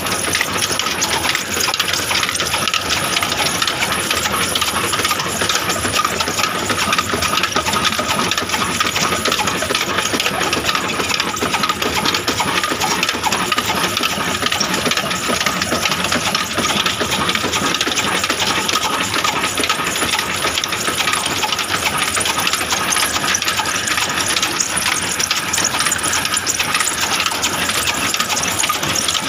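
Belt-driven line shaft and pulleys powered by an old single-cylinder stationary diesel engine, running steadily: a dense, rapid mechanical clatter with a steady high whine.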